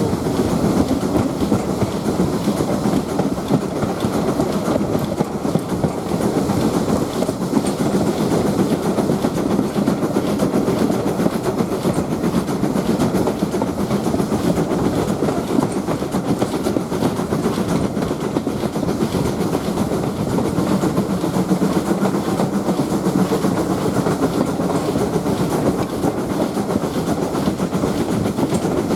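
Heritage passenger train running along the line: a steady rumble of carriage wheels on the rails.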